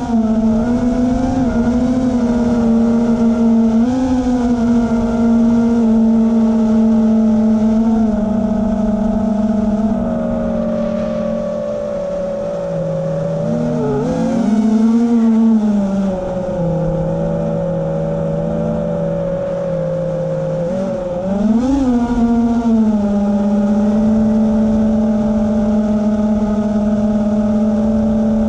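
Electric motors and propellers of a radio-controlled aircraft running with a steady, loud hum that wavers slightly with throttle. The pitch dips and comes back up about halfway through, and again briefly about three-quarters through.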